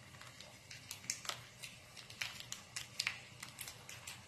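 A small plastic sauce sachet crinkling and crackling as it is squeezed out over a bowl of powders: a run of irregular, sharp little crackles, busiest in the middle.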